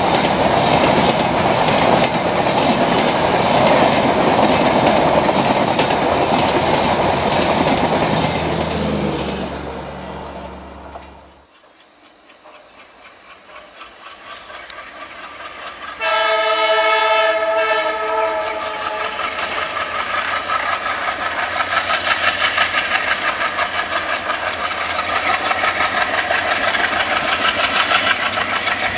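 Passenger coaches rolling past at speed, wheels clattering over the rail joints, fading away. Then an ALCo-engined Indian Railways diesel locomotive blows its horn for about three seconds and chugs hard under load, with a steady pulsing beat.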